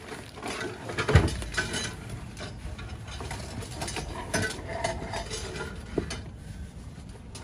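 Rummaging through a cardboard box of junk, with loose plastic wrapping crinkling and items inside clinking and knocking together. A heavier knock comes about a second in and a sharp click about six seconds in.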